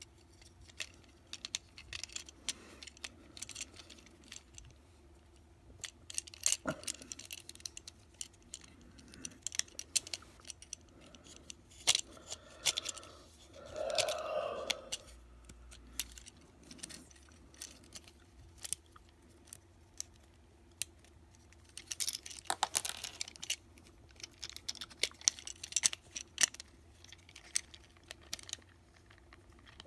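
Plastic Transformers Siege Chromia action figure being transformed by hand: irregular clicks and snaps of its joints and panels, with plastic parts scraping against each other around the middle.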